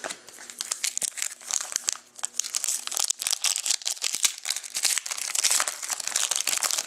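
Crinkling and tearing of a trading card pack's wrapper being opened by hand: a dense run of sharp crackles and rustles.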